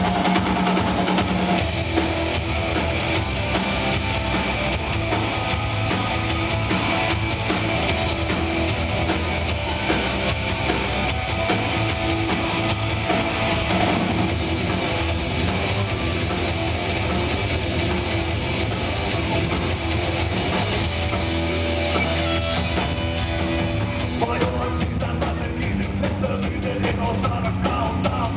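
Live rock band playing: electric guitar and drum kit.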